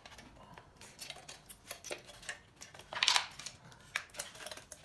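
Light, irregular metallic clicks, taps and rustles as the pieces of a taken-apart all-aluminum pickleball paddle are handled, with a louder, longer scrape about three seconds in.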